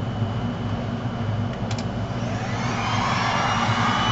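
A handheld heat gun switched on, its fan spinning up with a rising whine that settles into a steady high whine and a rush of blown air. Under it runs a steady low hum, with a brief double click shortly before the heat gun starts.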